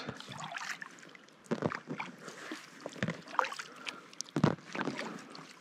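Paddling a small raft: water splashing and lapping at the hull, with a stroke about every second and a half.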